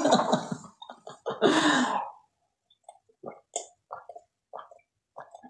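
A woman's laughter trailing off, then a string of short gulps and swallows, a few each second, as she drinks from a cup.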